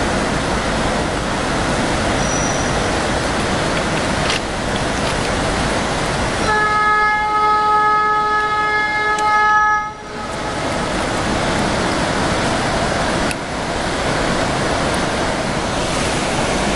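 A train locomotive's horn sounds one long, steady note from about six and a half seconds in and cuts off about three and a half seconds later. It sits over the continuous rushing noise of the big waterfall and the passing train.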